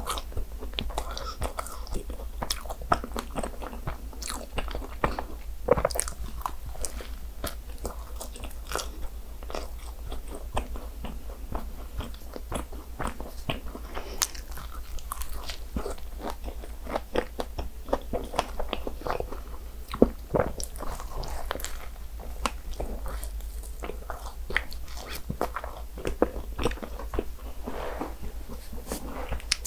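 Biting into and chewing a fresh-strawberry cream croissant, the flaky pastry crunching and crackling in many small crisp snaps. A steady low hum runs underneath.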